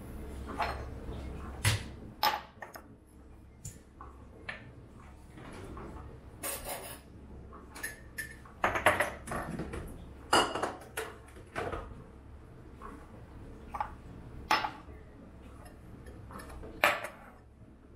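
Glassware and a spoon being handled on a stone kitchen countertop: irregular clinks and knocks of glass set down and touched, the loudest about halfway through and near the end.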